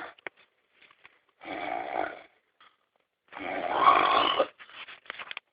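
Heavy snoring: two rough snores about two seconds apart, the second longer and louder, followed by a few short choppy catches near the end.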